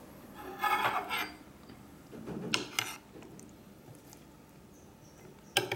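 Metal spoon stirring through curry, noodles and vegetables on a plate: a couple of short scraping, rustling bursts and a sharp click near the end.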